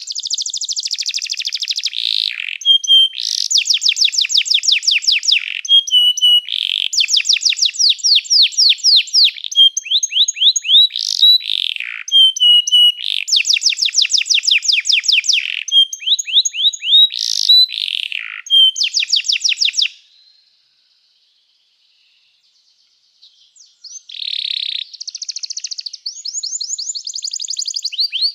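Domestic canary singing: long, fast trills of repeated high notes, one phrase after another, with short sharp notes between phrases. The song stops for about three seconds two-thirds of the way in, then starts again.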